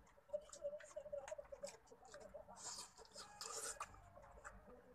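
Faint close-up eating sounds: smacking, small clicks of fingers picking at clam shells and shrimp, and a couple of short sucking noises about halfway through.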